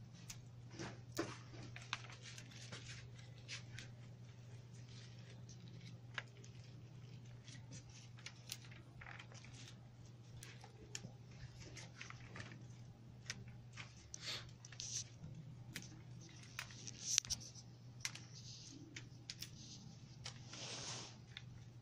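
Rose stems and leaves rustling and clicking irregularly as roses are gathered one by one into a hand-held bouquet, over a steady low hum.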